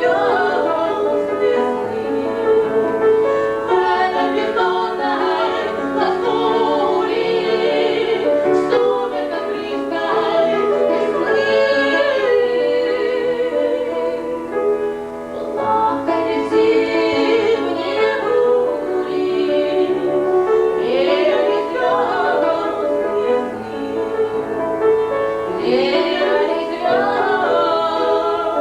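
Two women singing a romance-style song in a classical, operatic manner, their voices carrying a strong vibrato, with piano accompaniment.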